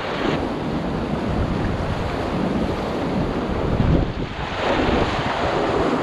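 Rough sea surf washing and breaking over the boulders and concrete tetrapods of a breakwater, with strong wind blowing across the microphone. The surf grows louder near the end.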